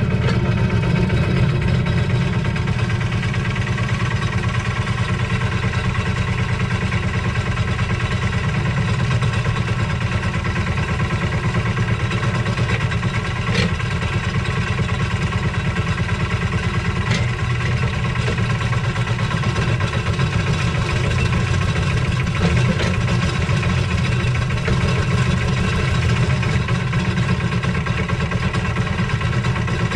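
Lister SR1 single-cylinder diesel engine of a 1979 Smalley 5 mini digger running steadily while the digger works. Two sharp knocks about three and a half seconds apart near the middle.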